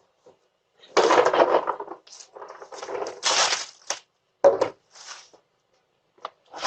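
Wrapped candy rustling and clattering as it is grabbed and tipped into a bag, in several bursts, with a sharp knock about four and a half seconds in.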